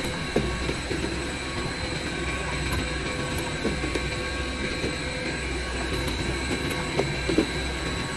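Laundry-soap production line machinery running: a continuous low mechanical hum with a steady high whine over it. A few light knocks stand out, two of them close together about seven seconds in.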